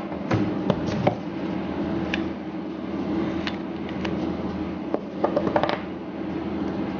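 Clicks and light knocks from a stainless-steel cookie press being handled, with a quick run of clicks about five seconds in, over a steady hum.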